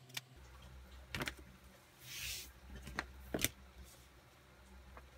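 Leather strap being handled on a cutting mat: a few sharp taps and knocks as it is set down, and a brief rustling slide near the middle.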